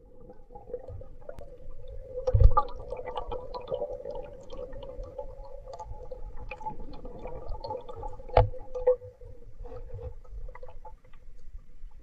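Muffled underwater sound through a camera's waterproof housing: a steady hum with scattered clicks and crackles, and dull knocks about two and a half and eight and a half seconds in.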